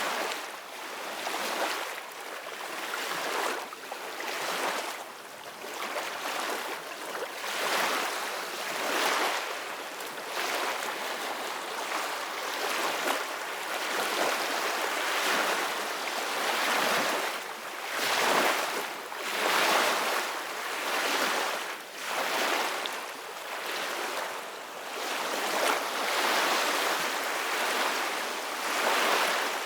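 Ocean waves breaking and washing up a beach, the surf swelling and ebbing every second or two.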